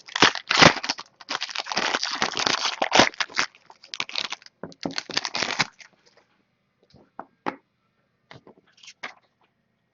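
Plastic shrink wrap being torn off a trading card box and crinkled, with crackling and rustling for about six seconds, then a few light taps and clicks as the box is opened.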